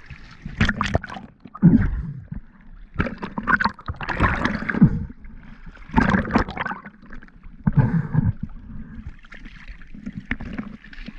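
Water sloshing, splashing and gurgling against a boat hull in irregular bursts, heard from a camera bobbing in and out at the waterline.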